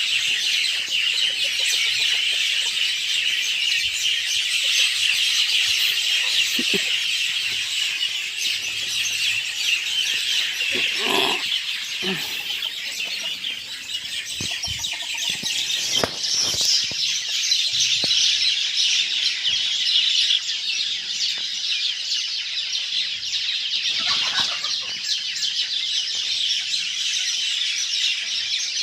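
A dense, steady chorus of birds chirping, with a few short, lower calls breaking in around a third of the way through, near the middle and later on.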